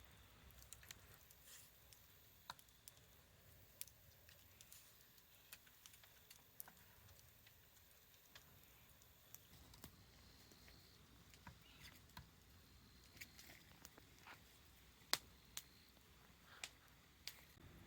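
Burning firewood crackling: sparse, irregular sharp pops over a very quiet background, one louder pop near the end.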